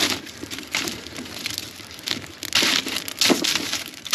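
Split firewood being handled and loaded into a wood stove: irregular knocks and scrapes of logs against each other and the stove.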